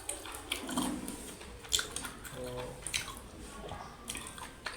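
Close-miked chewing and mouth sounds of someone eating rice and curry: scattered wet clicks and smacks, with a brief hum of voice about halfway through.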